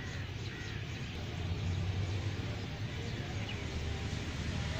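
Outdoor ambience: a steady low rumble with a few faint, short bird chirps.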